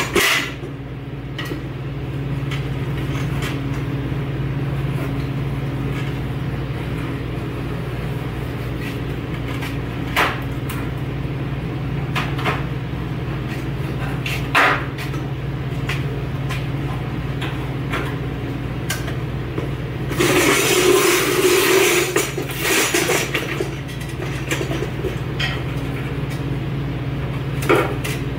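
Hand work fitting the liner under a raised pickup hood: scattered sharp clicks and knocks, and a few seconds of scraping and rustling about twenty seconds in, over a steady low hum.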